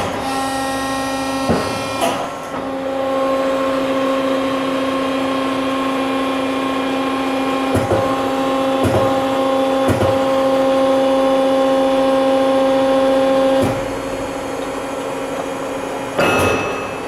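Accurpress 76010 hydraulic CNC press brake running, a steady machine hum of several held tones with a few sharp clicks and knocks. The hum grows louder about three seconds in and falls back a few seconds before the end.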